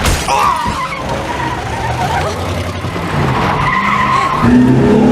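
Car skidding with tyres squealing, the squeal wavering and growing stronger in the second half, over a low steady rumble.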